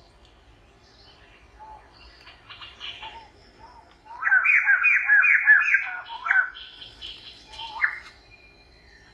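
A bird singing outdoors: scattered faint chirps, then about halfway through a loud run of six or seven quick whistled notes, each falling in pitch, about three a second for two seconds, and one more sharp note shortly after.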